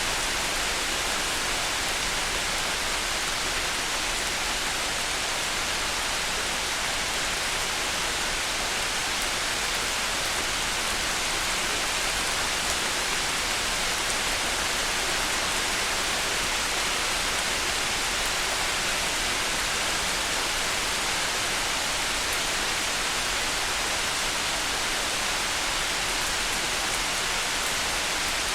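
Steady rain falling, an even hiss with no thunder and no changes in level.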